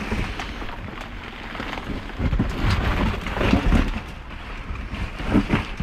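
Rummaging through dumpster contents: irregular rustling and crackling of bags and packaging, with knocks and low thumps as boxes are moved and handled.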